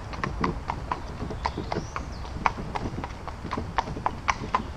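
Carriage horse's hooves clip-clopping on a paved road at a steady walk, about four strikes a second, with a low steady rumble underneath.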